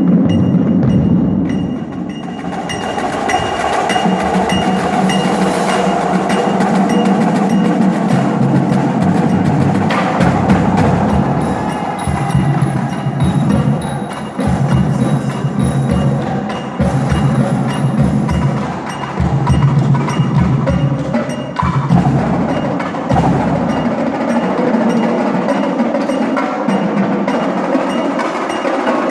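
Drumline performing a percussion passage: drums played together with pitched mallet percussion, the texture changing a few times along the way.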